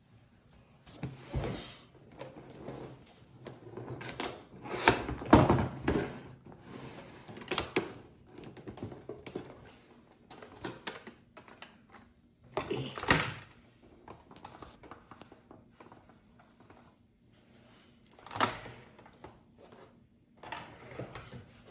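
Hard plastic toy packaging being opened and handled: irregular crinkles, clicks and thunks as a clear plastic lid comes off a plastic tray and a doll is pulled out. Loudest about five seconds in.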